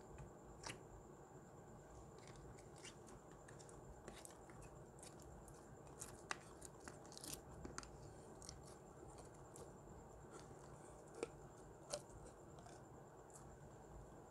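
Clear glitter slime being poked in its plastic jar and pulled out onto a table: faint sticky clicks and pops, scattered irregularly, a few louder ones about halfway and near the end, over a low steady hiss.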